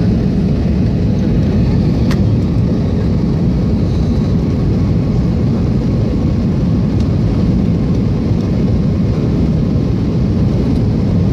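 Jet airliner cabin noise in flight: the steady, even rumble of the engines and rushing air, heard inside the passenger cabin. There is a single sharp click about two seconds in.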